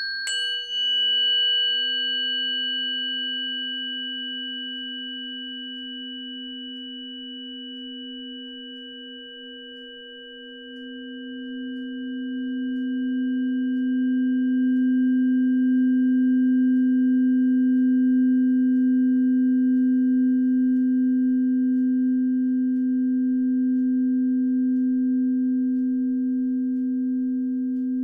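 A singing bowl struck once, ringing with a low steady hum and a few faint higher overtones. Its tone fades, then swells up again about ten seconds in and is held loud and steady.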